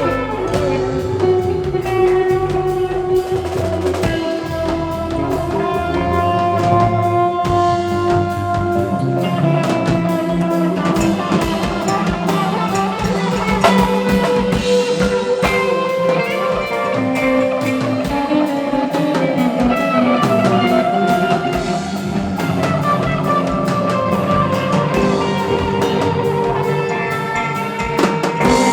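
Live rock band playing an instrumental passage with no vocals: sustained electric guitar lines over bass guitar and a drum kit.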